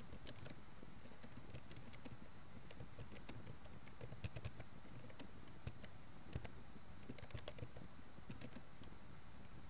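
Computer keyboard keys clicking in an irregular run as someone types, faint, over a steady low background hiss.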